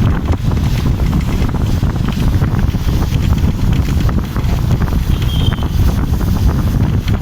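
Wind buffeting the microphone, a steady low rumble that rises and falls in gusts. A faint short high whistle, likely a bird call, comes about five seconds in.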